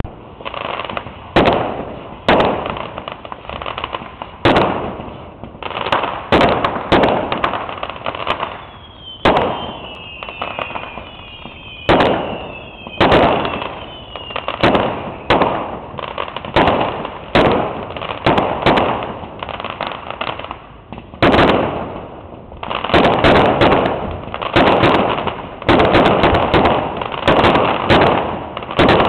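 Fireworks display: a string of sharp bangs from bursting fireworks, each followed by an echoing tail, coming roughly every second. Several whistles falling in pitch sound together about a third of the way in, and the bangs come thicker and closer together near the end.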